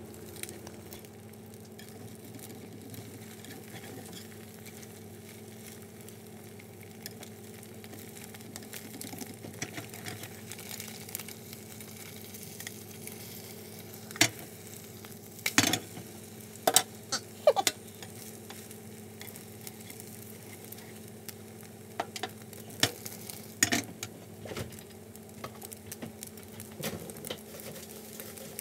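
Beaten eggs frying in a nonstick pan with a steady sizzle, and a spatula scraping and knocking against the pan several times about halfway through, with a few more knocks a little later.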